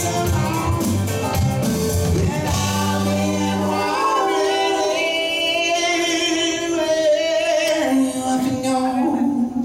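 Live band playing with sung vocal harmonies. About four seconds in, the bass and drums drop out, leaving the voices holding long notes over sustained keyboard and guitar.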